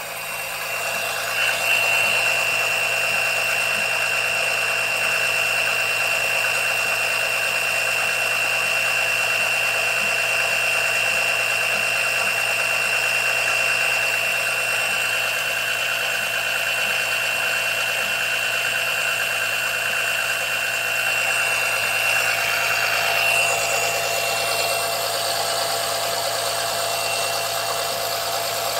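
Small motor-driven oil suction pump running steadily with a high whine, which drops away a few seconds before the end. It is drawing air along with the oil instead of an even flow, because holes chewed in the hose stop it from holding a vacuum.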